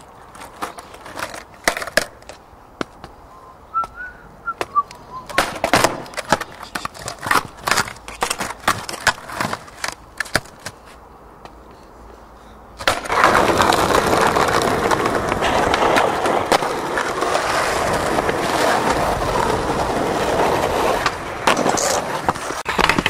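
Skateboard on rough asphalt: a run of scattered sharp clacks as the board is knocked and popped against the ground. Then, about thirteen seconds in, the steady noise of its wheels rolling over the asphalt.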